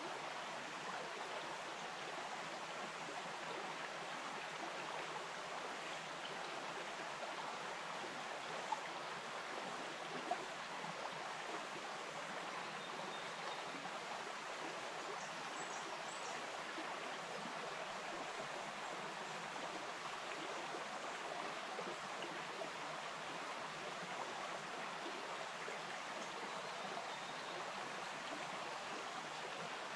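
Small bush stream flowing steadily over rocks, a continuous even rush of water. Two brief clicks stand out about a third of the way in.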